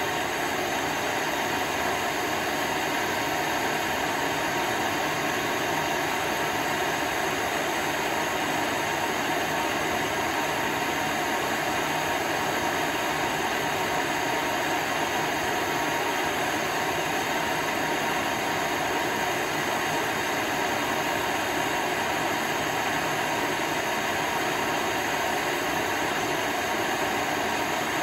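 Gas torch burning steadily, its flame giving a continuous, even hiss at constant strength.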